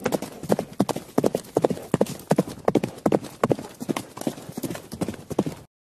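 Horse hooves clip-clopping in a quick, steady trot, laid in as a sound effect; it starts and cuts off abruptly.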